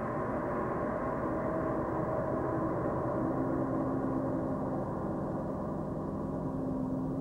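Sustained gong-like drone of the special-sound score: a dense, steady wash of many held low and middle tones, with one clear tone rising out of it about three seconds in.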